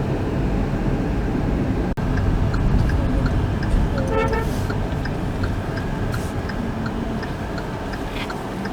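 Car driving on the road, heard from inside the cabin: steady engine and road noise, with a short horn toot about four seconds in.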